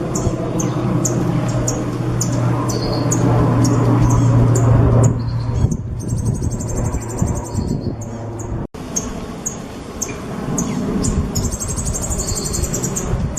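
Songbird singing: a string of short, sharp, high chirps, broken twice by a long, rapid, high trill, one about six seconds in and one near the end. A steady low hum and background noise run underneath, and a brief dropout comes partway through.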